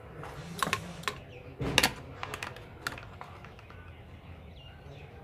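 Sharp clicks and taps of steel pliers against a plastic switchboard plate and the brass terminal nut being tightened on it, a few irregular strikes with the loudest a little under two seconds in, then some lighter clicks.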